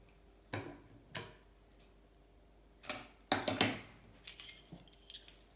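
Bench handling noise from adhesive tape and small parts: a few short scrapes and clicks, with a louder crackly cluster about three seconds in and small ticks near the end.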